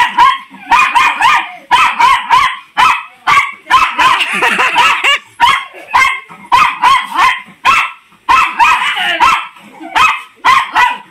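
Small fluffy dog barking excitedly in rapid, high-pitched yaps, several a second in repeated volleys, while playing roughly with a child.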